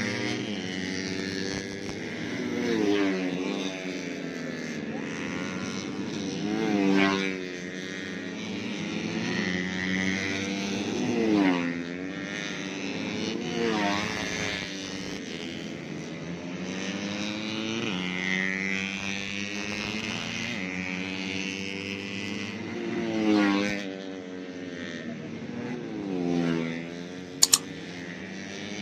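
Several 130cc four-stroke underbone racing motorcycles running at high revs and passing one after another, each engine's pitch sweeping as it goes by. Two sharp clicks come near the end.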